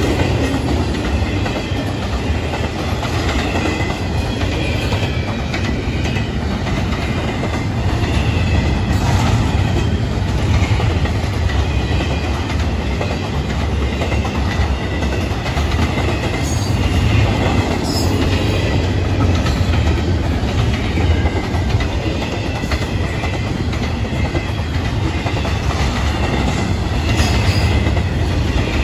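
Intermodal freight cars of a Florida East Coast Railway train rolling past close by: a loud, steady rumble of steel wheels on rail, with faint high-pitched squeals from the wheels.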